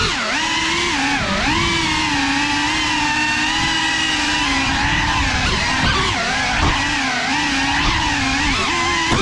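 Motors and ducted propellers of a CineLog35 cinewhoop FPV quadcopter whining close up, the pitch rising and dipping again and again as the throttle changes through the flight.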